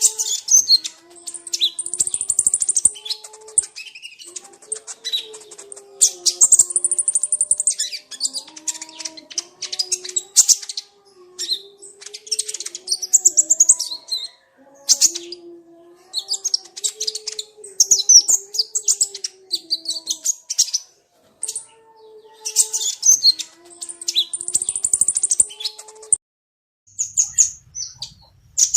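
Recorded songbird chorus of a white-rumped shama mixed with small birds' calls: repeated bursts of high, rapid chirps and trills separated by short pauses, over a low wavering tone.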